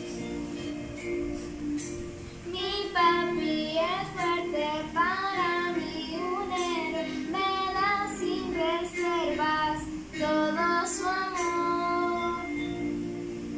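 A young girl singing a song over musical accompaniment. The accompaniment plays alone at first, and her voice comes in about two and a half seconds in.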